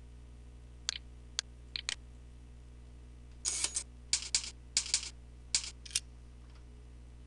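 Computer mouse clicks, four in the first two seconds, then a quick run of about nine keyboard keystrokes, over a steady low electrical hum.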